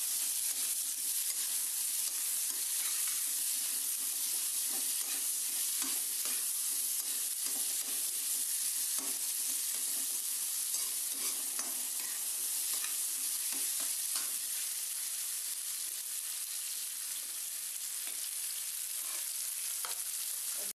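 Sliced onions sizzling steadily as they fry in hot olive oil in a kadai (Indian wok), with a steel spatula scraping and clinking against the pan as they are stirred. The onions are at the first stage of frying, being taken to light brown.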